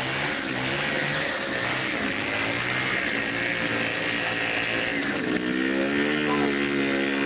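Two-stroke motorcycle engine held at high revs during a burnout, the rear tyre spinning on grass. The revs climb higher about five seconds in.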